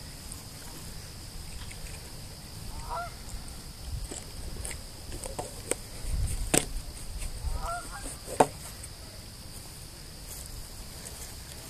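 Waterfowl calling: a short series of honking calls about three seconds in and another around seven to eight seconds. A few sharp clicks fall between and after the calls, the loudest near the end of the second series.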